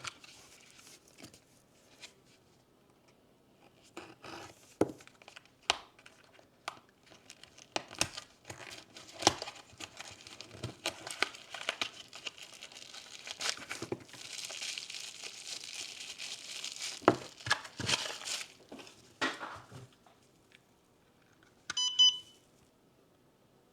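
Plastic packaging crinkling and tearing as a LiPo battery pack is unwrapped and handled, with scattered clicks and rustles. Near the end a single short electronic beep sounds, typical of a LiPo cell voltage checker being plugged into the pack's balance lead.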